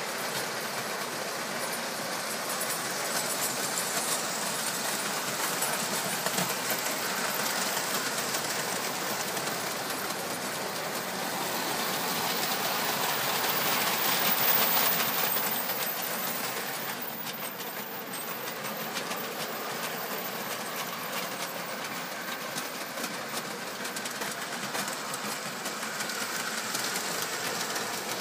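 O gauge tinplate model trains running on three-rail metal track: a steady rattling clatter of wheels on rail joints with a motor whirr. It swells as a train passes close, about halfway through, then eases back.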